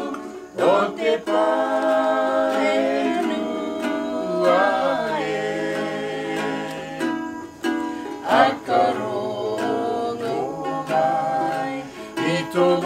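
Ukulele strummed in a steady rhythm, accompanying singing.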